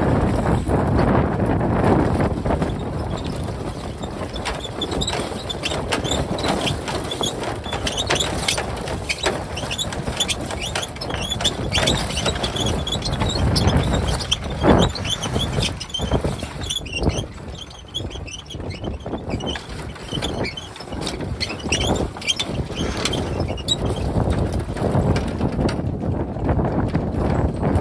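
Strong wind buffeting the microphone over water rushing and splashing against a sailing yacht's hull, with many short knocks and slaps throughout.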